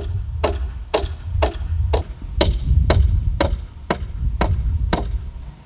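Hammer driving a nail into sawmilled cedar framing lumber: about eleven evenly spaced strikes, roughly two a second.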